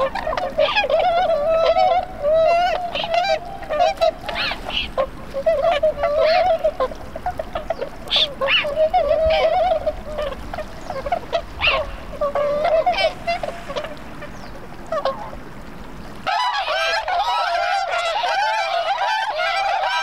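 A flock of Bewick's swans calling, many honking calls overlapping. A low background rumble cuts out abruptly about sixteen seconds in, while the calling continues.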